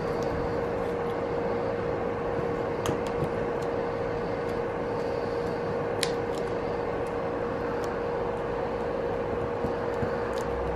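A steady electric fan-like hum with a constant tone, and a few faint clicks of the vinyl-wrapped plastic trim being handled.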